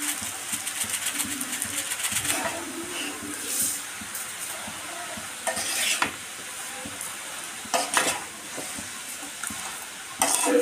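A metal spoon stirring grated raw mango and sugar in a pan, clicking and scraping against the pan. There are quick little strokes at first, then a few louder separate scrapes, the last near the end.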